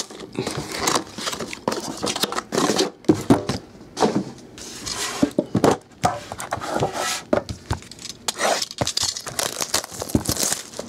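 Handling noise from opening a trading-card box: plastic packaging crinkling and tearing, with the box knocking and scraping on the tabletop in irregular bursts.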